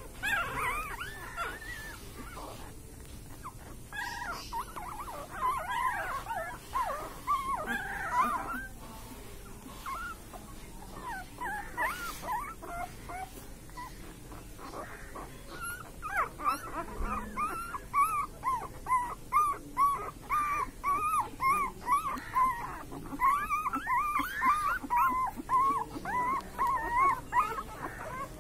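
Newborn puppies whimpering and squeaking in their sleep: short, high squeaks that rise and fall, scattered at first, then coming about two a second from about halfway through.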